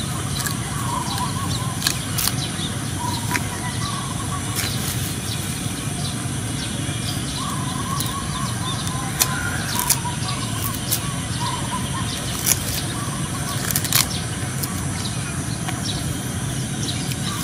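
Sugar cane being bitten and chewed, heard as scattered sharp crunches and cracks over a steady rushing background noise.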